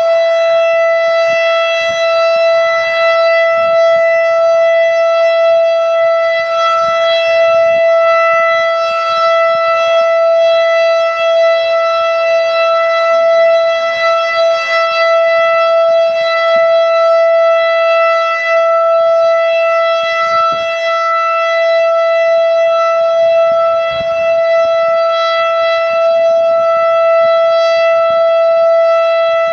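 Federal Signal STH-10A outdoor warning siren sounding one steady, unbroken tone during a siren test, with strong overtones and a slight waver in loudness.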